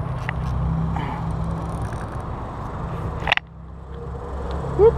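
Steady low rumble of traffic on the highway overpass. A sharp click comes a little past three seconds, and a short rising squeak, the loudest sound, comes near the end.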